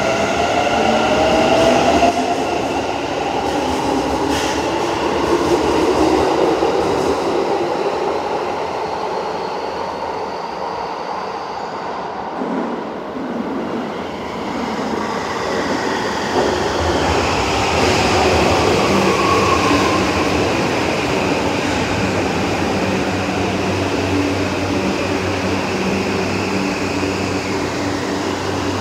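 Subway train in an underground station: electric traction motors whining in gliding pitches over wheel rumble as the train moves along the platform, rising in pitch in the first couple of seconds and changing again about two-thirds in. In the last several seconds it settles into a steady low hum.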